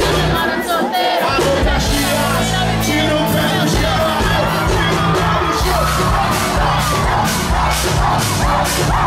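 Live band music with a singer and a steady beat, over a cheering, yelling crowd; the bass and drums come in about a second in.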